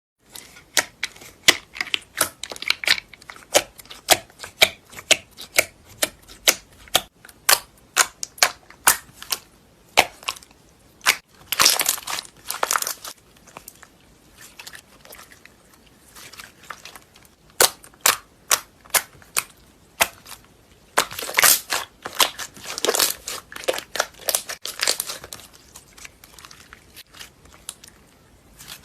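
Clear slime being pressed and poked, giving a run of sharp popping clicks at about two or three a second, with two longer crackling, crinkling stretches, one near the middle and one later on.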